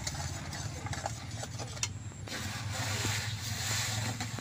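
Flattened rice poured by hand from a bamboo winnowing tray into a wok of hot jaggery syrup: a dry rustling hiss with a few small clicks, growing thicker about halfway through. A steady low engine hum runs under it.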